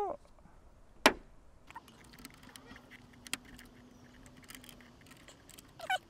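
Screwdrivers prising a motorhome's inner door card off the door: one loud sharp snap about a second in, then scattered light clicks and taps as the card is worked free along its edge.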